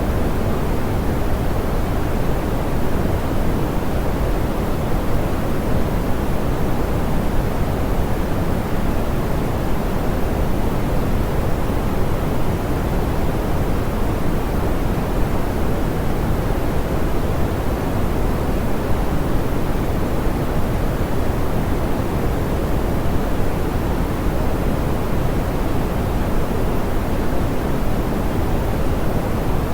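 Steady, soft pink noise: an even hiss weighted toward the low end, with little high treble, unchanging throughout.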